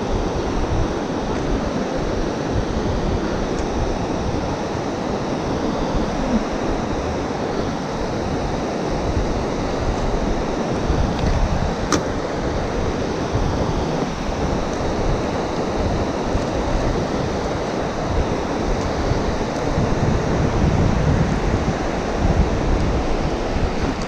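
Wind buffeting the microphone: a steady rushing with irregular low rumbling gusts, and a single short click about halfway through.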